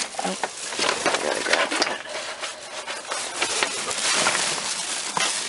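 Rustling and clattering of discarded items being rummaged through and pulled out by hand in a dumpster, with many small knocks and clicks.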